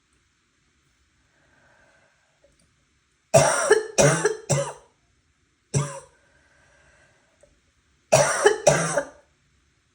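A sick person coughing: a run of three coughs, a single cough about two and a half seconds into the run, then two more coughs near the end.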